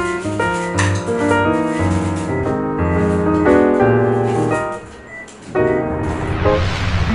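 Background music: piano notes over a steady bass line, dropping away briefly about five seconds in, then a rising swell that leads into the next section.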